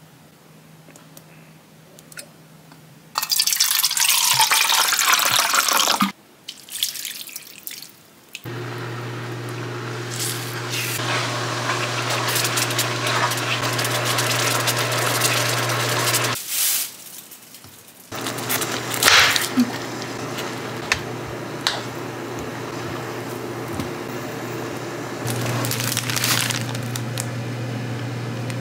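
Liquid poured into a frying pan, then red tteokbokki sauce bubbling on high heat as a spoon stirs it, over a steady low hum.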